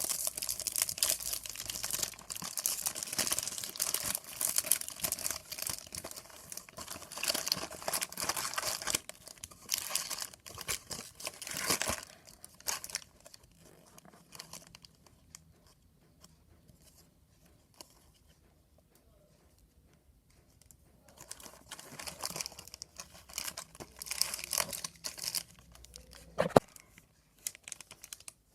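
Oreo cookie packaging being torn open and crinkled by hand, in busy stretches with a quiet pause of several seconds in the middle. A single sharp click near the end.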